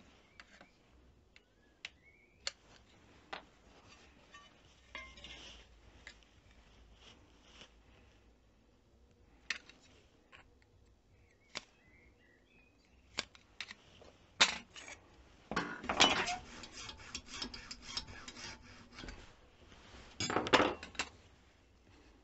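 Small hand tools and strips of laminated fibreglass-PCB and PVC sleeper material clicking and clinking on a workbench as they are handled. About two-thirds of the way in there is a run of quick rasping strokes as the strip is worked with a hand tool, and a shorter run near the end.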